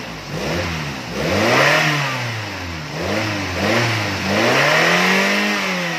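1993 Nissan B13's four-cylinder engine revved up and down about three times, running cleanly without misfiring, its spark plugs just replaced.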